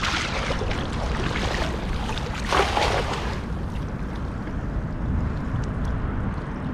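Wind rumbling on the microphone over the sound of water, with two brief louder rushes of noise, one at the start and one about two and a half seconds in.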